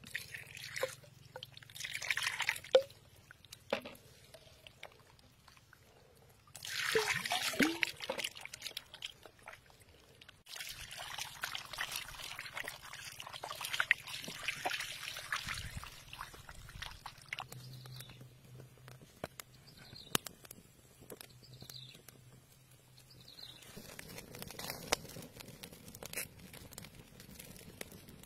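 Water poured and splashing over a raw animal heart as hands rinse and squeeze it, with wet handling sounds.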